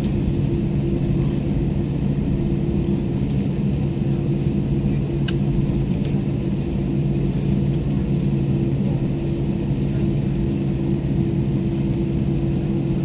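Airbus A321-231's IAE V2500 jet engines at low taxi power, heard inside the cabin over the wing as a steady drone with a low, even hum.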